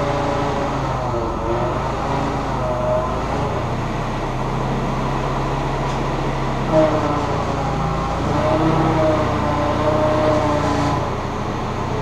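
Forklift engine running while the hydraulic mast is raised. A pitched hydraulic whine comes and goes several times over the engine.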